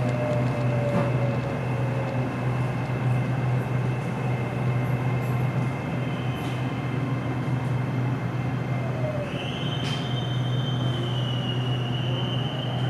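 SRT Red Line electric commuter train running, with a steady low hum and a high whine. A second, higher whine comes in about nine seconds in.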